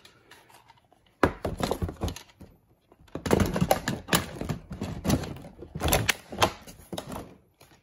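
Hard plastic clacks and knocks from a translucent plastic gel blaster being handled in its cardboard box. There is one sharp knock about a second in, then a busy run of clicks and clatter.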